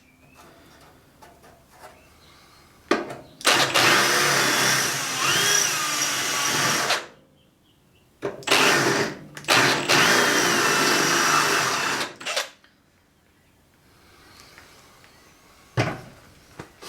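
A drill boring out spot welds in the steel cowl panel of a 1966 Mustang. It runs in two spells of about three and a half seconds each, its pitch dipping and rising as the bit bites into the metal. A short knock comes near the end.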